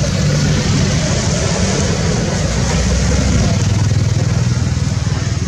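A motor vehicle's engine running close by, its low hum dropping slightly in pitch about three and a half seconds in, under a steady hiss.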